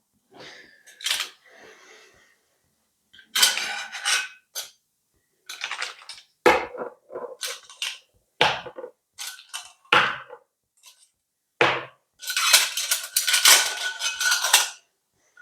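Irregular clattering and clinking of hard objects, a string of sharp knocks, some with a faint ring, thickest and loudest near the end.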